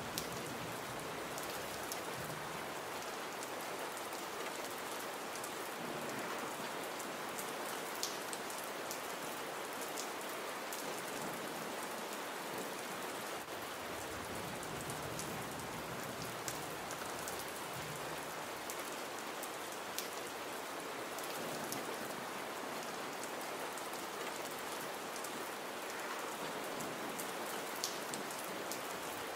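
Gentle rain falling steadily, an even hiss with occasional sharper drop ticks.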